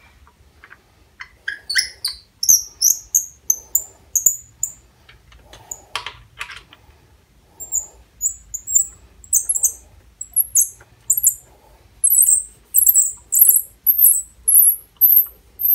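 A hand tap cutting threads dry, with no cutting fluid, squeaking as the tap wrench is turned. It gives a string of short, high-pitched squeaks, sparse at first and coming in a quicker, even run in the second half.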